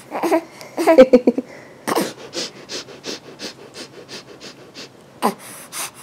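Five-month-old baby making rapid, playful sniffs through her nose, about three or four short sniffs a second. A short burst of laughter comes in the first second and a half.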